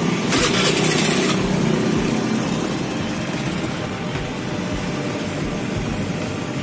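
Honda Scoopy FI scooter's single-cylinder four-stroke engine running at idle, just started. Less than a second in there is a hiss lasting about a second.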